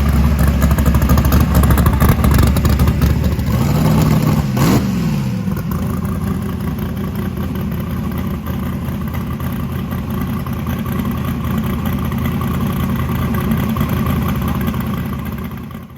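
Car engine running steadily, with a brief rise and fall in pitch about four seconds in.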